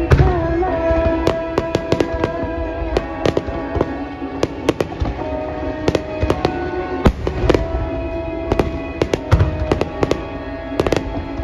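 Fireworks display: a rapid, irregular string of sharp bangs and crackles, with a few deeper booms, over music playing throughout.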